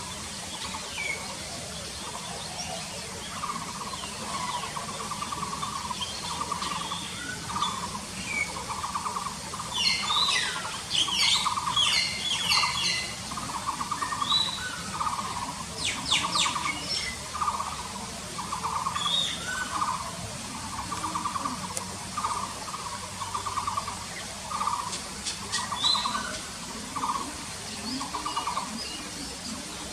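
Forest birdsong: a steady series of short, burry calls at one pitch, repeated about once a second. Higher chirps and quick trills from other birds come in over it, busiest about ten to thirteen seconds in.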